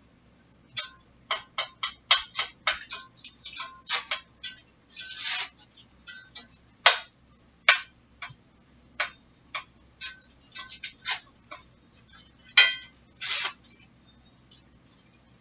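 A spoon clinking and scraping against a pan on the stove as ground beef is stirred while it browns: irregular sharp taps, a few a second, with a couple of longer scrapes.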